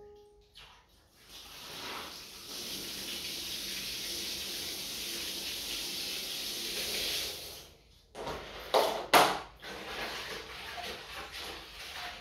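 Water running steadily for about seven seconds, then cutting off sharply, followed by two loud splashes and softer sloshing in a plastic basin.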